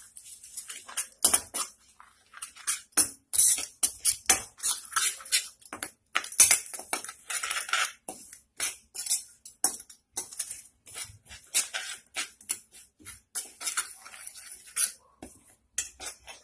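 A steel spoon stirring ground spices into oil in a kadhai: a quick, irregular run of metal scrapes and clinks against the pan.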